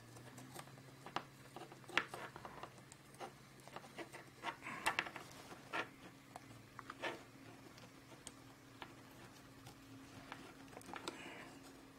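Faint, scattered small clicks and rubbing as hands handle carbon-fibre quadcopter frame parts and a hex driver turns a bolt into a spacer. A faint steady low hum runs underneath.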